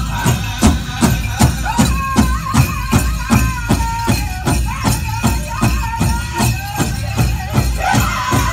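Powwow drum group: a big drum struck in a steady beat, about three strokes a second, with men singing a powwow song over it. The singing rises higher near the end.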